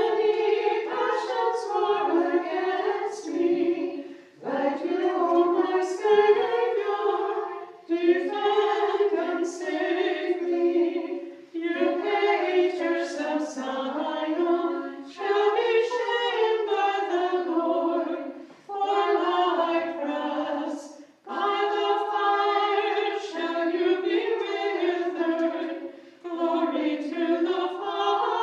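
Orthodox liturgical chant sung a cappella by a small group of voices, in phrases of about three to four seconds separated by brief pauses for breath.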